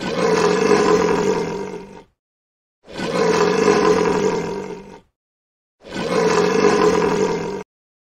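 Lion roar, the same roar heard three times in a row, each about two seconds long, with dead silence between them.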